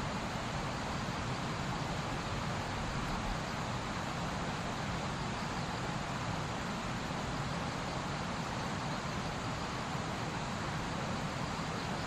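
Steady, even rushing background noise that holds level throughout, with no distinct calls or other events.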